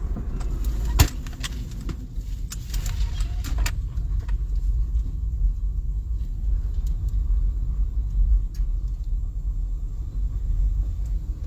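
Low road and engine rumble heard from inside a moving car, with a sharp click about a second in and a short run of clicks and rattles a couple of seconds later.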